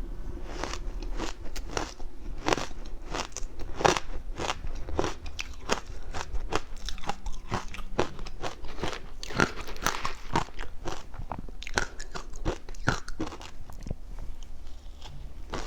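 Close-miked crunching and chewing of frozen matcha ice: a quick run of sharp, crackly crunches, several a second.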